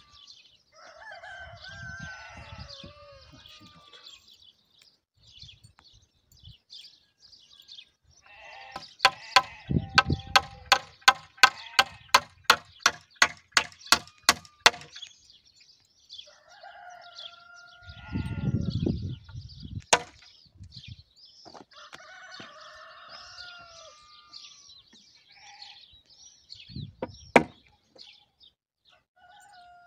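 A hammer nailing a wooden crossbeam to a post: a quick run of about fifteen sharp blows, roughly three a second, lasting about six seconds. A couple of single knocks follow later, and farm animal calls sound on and off throughout.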